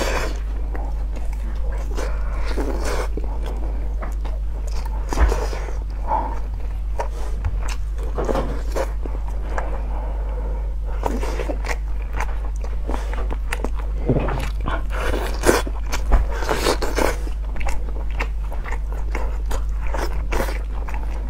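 Close-miked eating sounds: biting, chewing and tearing meat off a chicken bone by hand, with irregular wet clicks and smacks, over a steady low hum.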